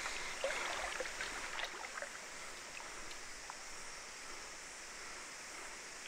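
Steady rush of a small stream's flowing water, with a few faint ticks and splashes in the first two seconds.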